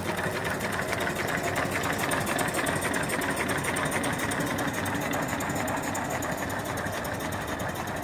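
Small single-cylinder steam engine with flyball governor running steadily under steam: a fast, even mechanical clatter.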